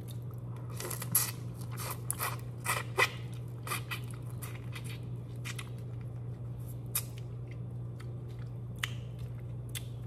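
Close-up eating sounds of broiled head-on shrimp: shells cracking and crunching with chewing, in scattered sharp clicks that are busiest in the first three seconds, over a steady low hum.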